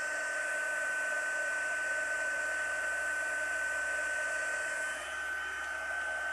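Craft embossing heat gun running, blowing steadily with a constant high whine over its airflow noise, as it melts white embossing powder on cardstock to heat-set it.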